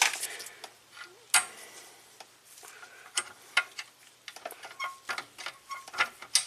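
Scattered light metallic clicks and taps as the shifter rod linkage is worked apart by hand with its pinch bolt out, one sharper click about a second and a half in.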